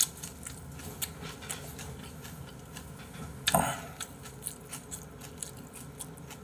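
A person eating close to the microphone: soft chewing and many small mouth and chopstick clicks, with a short, louder breathy noise about three and a half seconds in.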